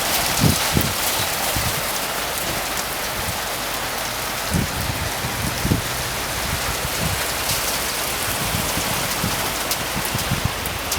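Heavy rain falling steadily, an even hiss of rain hitting surfaces. A few short low thumps come through, one near the start and two around the middle.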